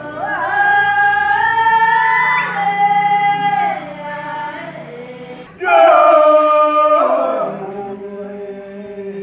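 A group of voices singing a tebe, the Timorese circle-dance song. A loud held phrase slides in pitch, eases off, and a second loud phrase comes in a little past halfway, over lower voices holding long notes.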